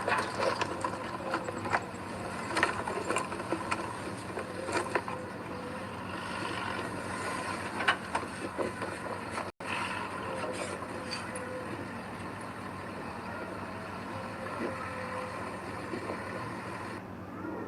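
Heavy earthmoving machinery running, with scattered clanks and knocks over the first half. The sound cuts out for an instant about halfway through, then the engine runs on more steadily.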